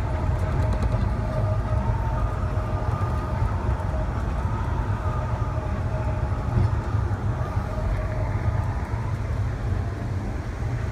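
Amtrak passenger train rolling along the track, heard from inside its last coach car: a steady low rumble of wheels on rail. A faint steady whine rides over it for the first several seconds.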